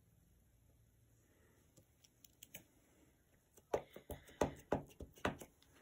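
A few faint clicks, then a quick run of sharp taps over about a second and a half near the end: a clear rubber stamp being tapped onto a black ink pad to ink it up.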